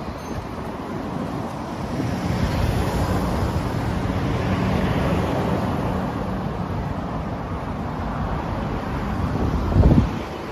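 Kawasaki Ninja 650's parallel-twin engine idling steadily, with wind buffeting the microphone and a short low gust just before the end.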